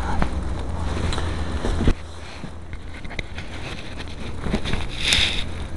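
Wind buffeting the microphone as a low rumble that drops away about two seconds in. Then scattered light crunches, and near the end a loud hissing crunch of footsteps in deep snow.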